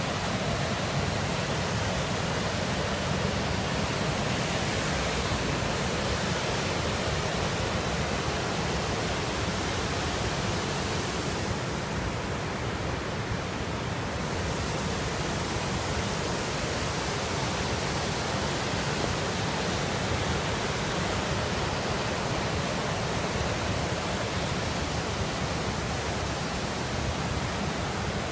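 Steady rushing roar of a fast river's whitewater rapids, its hiss dulling for a couple of seconds around the middle.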